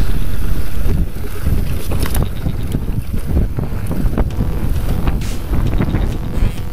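Wind buffeting the microphone as a mountain bike rolls fast down a rocky trail, with a steady rumble and scattered knocks and rattles from the tyres and bike striking stones.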